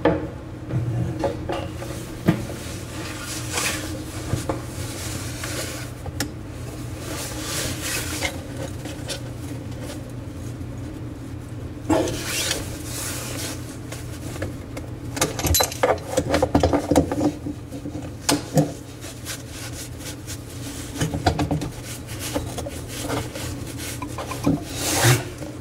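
Irregular metallic scraping, rubbing and clicks of locking pliers turning the mounting nut on a washbasin mixer faucet's threaded shank to loosen it. The handling is busiest in the second half.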